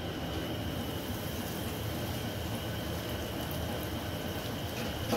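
Breaded cutlets sizzling steadily as they shallow-fry in hot oil in a pan, over a steady low rumble.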